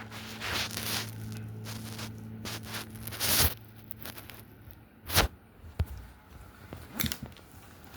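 Close-up rustling and handling noises: a couple of hissy swishes and a few sharp clicks or knocks, with a low hum dying away in the first couple of seconds.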